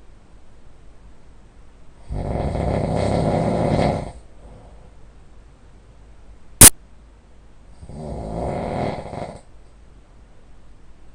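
A person snoring in sleep: two long snores, the first about two seconds long and the louder, the second about a second and a half and weaker. Between them comes a single sharp click, the loudest sound.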